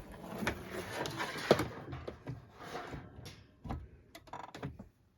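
Handling noise from a plastic box fan being moved and set up: a scraping, rustling stretch with a sharp click about one and a half seconds in, then scattered light knocks and clicks.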